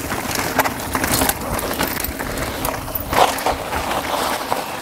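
Mountain bike tyres rolling over a loose, rocky trail: a crunching rush of gravel with many clicks and knocks from stones, loudest about three seconds in as a rider passes close.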